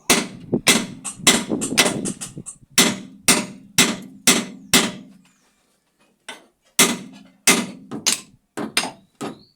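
Hammer blows on the steel front suspension of a pickup, driving the ball joint down and free. There are about a dozen ringing metal-on-metal strikes at roughly two a second, a short pause past the middle, then another quicker run of blows.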